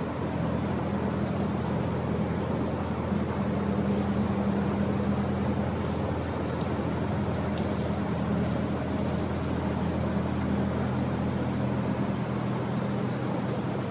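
Steady low mechanical hum over an even rushing noise, with two faint ticks in the middle.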